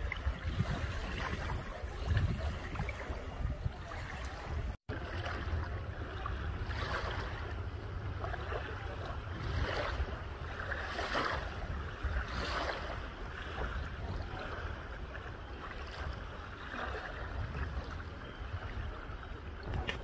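Small waves lapping and washing over a coarse sand shoreline in repeated soft splashes, with wind rumbling on the microphone. The sound drops out for an instant about five seconds in.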